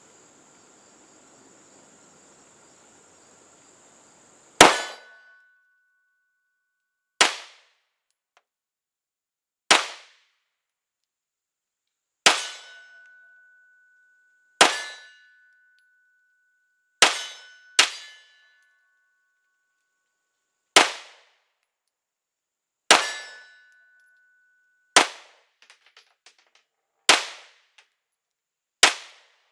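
CZ P10 C 9mm pistol fired twelve times in slow, deliberate aimed shots, about two to three seconds apart, with a pair in quick succession near the middle. Each shot is a sharp crack, some followed by a brief ringing tone. The first shot comes about four and a half seconds in, after faint hiss.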